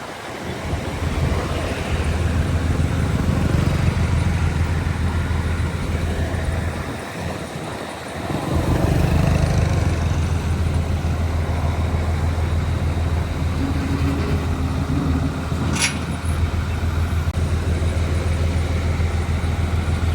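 Heavy diesel engine of earthmoving machinery, a bulldozer or dump truck, running steadily with a deep drone. It falls away briefly about seven seconds in, then comes back up. One short, sharp high-pitched squeak or clank sounds near the end.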